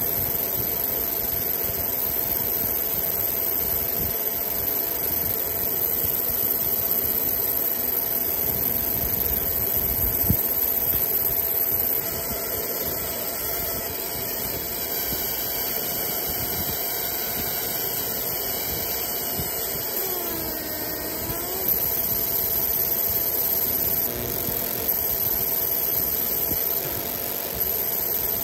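Fiber laser engraver running while it marks a brass coin: a steady mechanical hum with a constant mid tone. A very high whine cuts out and comes back several times, and there are a few short sweeping tones about twenty seconds in.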